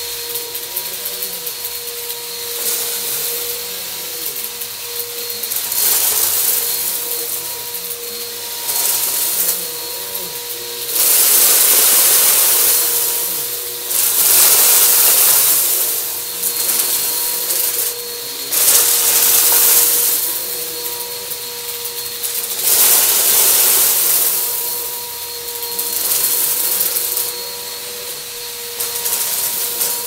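Bissell PowerForce Helix Turbo upright vacuum running with a steady motor whine, swelling again and again into loud crunchy, rattling noise lasting a second or two each time as it passes over a pile of colourful debris on carpet and sucks it up.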